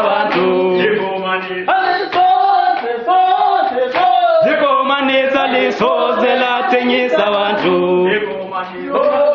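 A group of comrades singing a revolutionary chant together, several voices at once, held notes changing every second or so.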